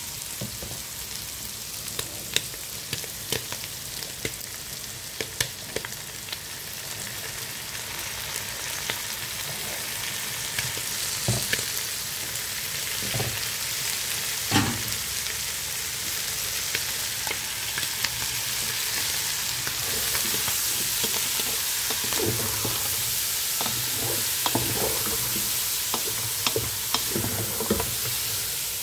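Shrimp and onions sizzling as they fry in oil in a pot, the hiss growing gradually louder. Scattered short knocks and scrapes of a spoon stirring against the pot.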